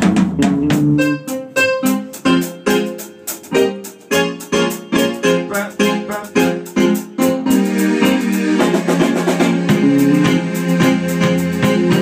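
Instrumental backing track (riddim) with drum kit and keyboard, playing loud with a steady beat. It gets fuller about eight seconds in.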